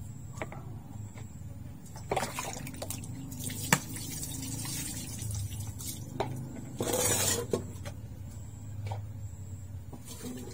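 Water splashing and running as a wooden cutting board and a long knife are rinsed by hand, with a sharp knock a little over a third of the way in and a longer splash about two-thirds of the way through. A steady low hum runs underneath.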